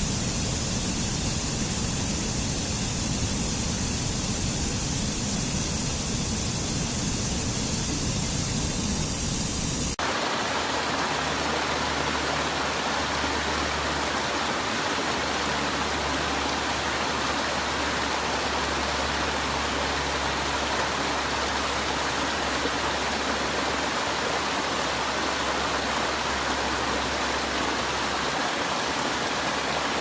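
Steady rush of water from a stream cascading over rocks. About ten seconds in it switches abruptly to a different rush of small falls over rock ledges, brighter and with less deep rumble.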